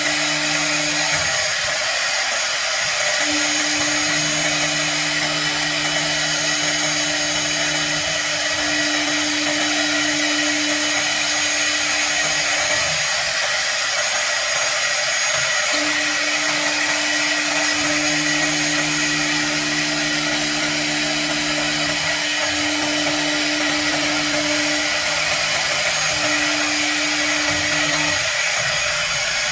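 CNC router spindle running steadily while it cuts acrylic, a continuous machine noise with a steady high whine. Under it, a lower hum starts and stops every few seconds.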